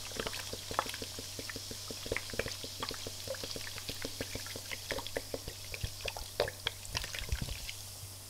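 Ginger beer poured from a plastic bottle into a slow cooker pot over meat and onions: a steady splashing pour with a patter of small irregular pops and splashes, easing off near the end.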